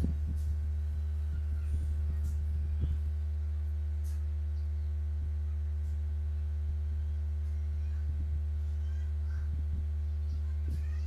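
Steady low electrical mains hum, with a few faint short ticks over it.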